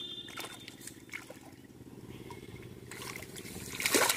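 A hooked grass carp splashing at the water's surface, with the biggest splash near the end as it is hauled out onto the bank.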